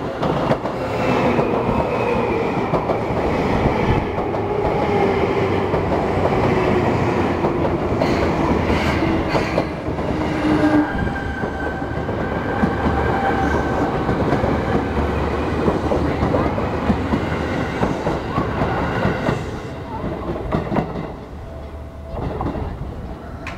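Seibu Railway New 2000 series electric train, ten cars coupled as 2+4+4, passing close by. Its wheels click over the rail joints and a whine falls in pitch over the first ten seconds or so. The sound drops away near the end as the train moves off.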